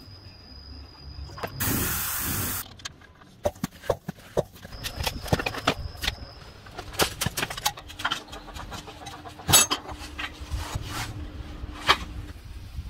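Workshop work sounds: a burst of hiss lasting about a second, then many irregular clicks and knocks of tools and metal parts being handled.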